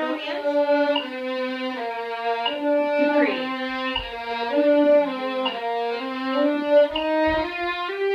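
Solo violin playing a B-flat scale exercise in broken octaves: separate bowed notes leaping between a low note and the one about an octave above, the pair moving step by step.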